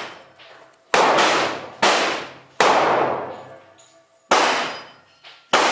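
Mateja Shotgum revolver firing five shots, each a 10.5 mm rubber ball driven by a 6 mm blank cartridge. The shots come about a second apart, and each is a sharp crack that rings and echoes off the walls of the range. The last shot is cut short.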